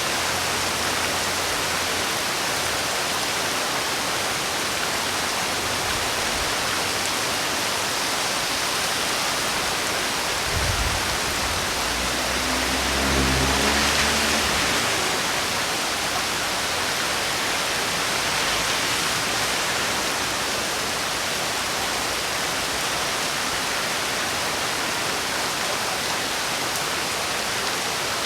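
Heavy rain falling steadily, a dense even hiss. About halfway through, a brief low rumble swells up and fades under it.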